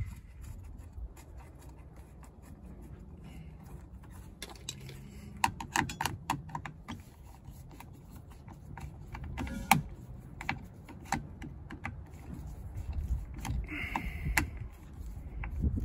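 Irregular small clicks and taps of hands and a screwdriver working a plastic trailer-hitch electrical socket, turning a screw to clamp a wire.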